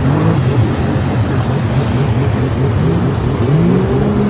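Several motorbike engines revving, their pitches overlapping and rising and falling, with sharper rises near the end.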